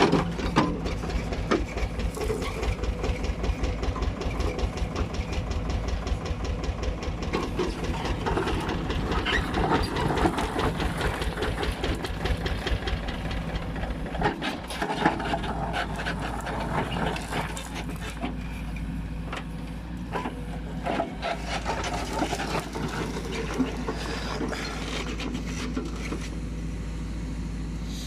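Caterpillar 434E backhoe loader's diesel engine running under load while the backhoe arm digs through rubble and stones, with a rapid clatter that eases about halfway through. Scattered knocks of stone against the bucket.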